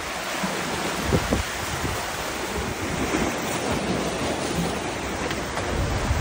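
Sea waves surging and breaking against breakwater rocks, a steady wash of surf, with wind buffeting the microphone in a few brief low thumps.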